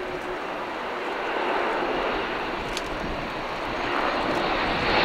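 Airbus A400M Atlas flying past, its four Europrop TP400-D6 turboprop engines and propellers running as a steady noisy sound with a faint held tone. It gets louder about a second and a half in and again near the end.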